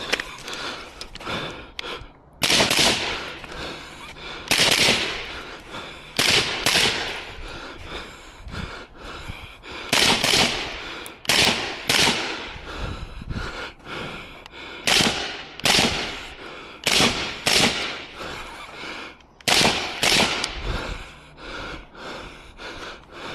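Rifle shots fired during a practical rifle course of fire: about fourteen sharp reports, each with a short echoing tail, spaced a second or more apart and often coming in quick pairs.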